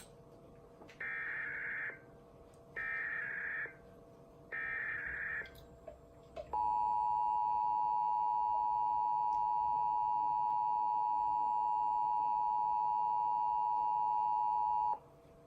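EAS SAME header from a Trilithic EASyPLUS relaying a Required Monthly Test: three one-second bursts of warbling data tones, followed by the two-tone attention signal (853 and 960 Hz) held steady for about eight seconds before cutting off.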